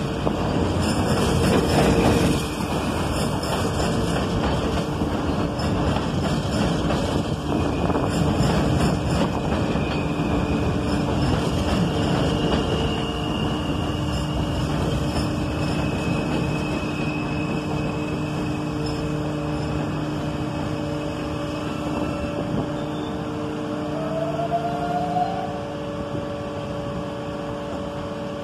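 New York City Subway R160 train running into a station and slowing to a stop: steady wheel-on-rail rumble under the whine of its electric traction motors, several steady tones sounding together. The noise slowly fades as the train slows, with a brief rising squeal near the end.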